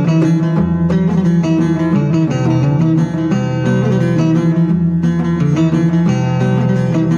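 Background music led by a plucked string instrument, played as a quick run of picked notes over a steady low bass.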